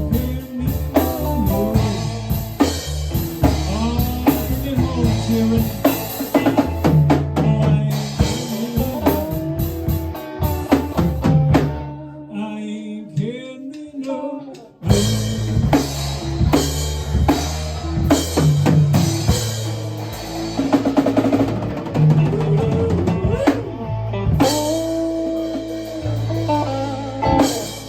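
Live rock band playing, with drum kit and guitar. About twelve seconds in the music drops down quieter for a few seconds, then the full band comes back in with a sudden loud hit.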